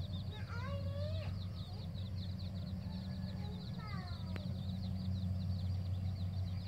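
Domestic chickens calling: a few short clucks and a call that falls in pitch about four seconds in, over a fast, continuous high chirping and a steady low hum.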